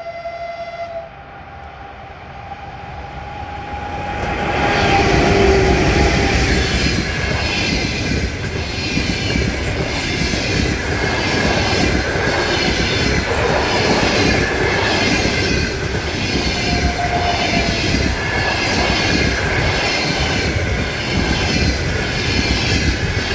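ChS7 electric locomotive hauling a passenger train past at speed. Its horn sounds and stops about a second in. The engine and coaches then pass close by, loud, with the wheels clattering over the rail joints about once a second.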